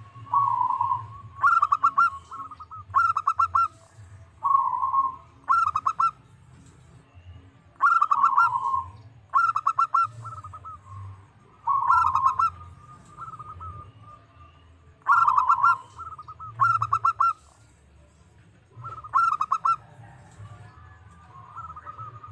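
Zebra dove (perkutut) singing: phrases of rapid staccato cooing notes and rolling coos, repeated every second or two with short pauses, over a faint low hum.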